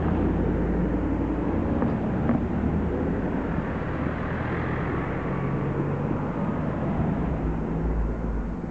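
A line of cars, Mercedes-Benz SL (R129) roadsters and a Jeep among them, driving past one after another, engines humming and tyres on the road. The sound swells about halfway through as one passes close.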